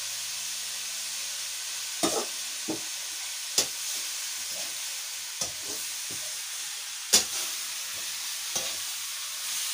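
Leafy greens (bhaji) frying with a steady sizzle in a kadhai over a wood fire, stirred with a metal ladle that knocks against the pan now and then; the sharpest knock comes about seven seconds in.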